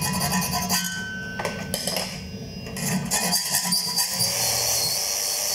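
Hand tools scraping and rubbing on a thin aluminium chain guard as cut-out letters are worked by hand, in irregular strokes with a brief lull partway through.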